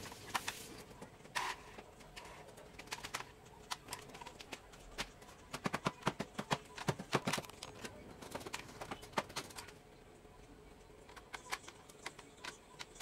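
Clicks and taps of plastic and metal parts in an opened Epson L120 inkjet printer mechanism being handled and probed by hand, with a quick run of clicks about halfway through.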